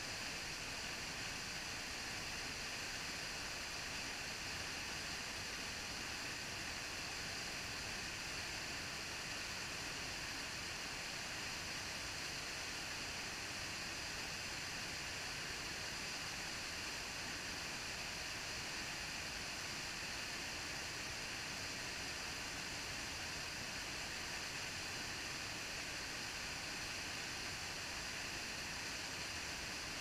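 Small waterfall on a creek: a steady rush of water pouring over rock into a pool, even and unchanging.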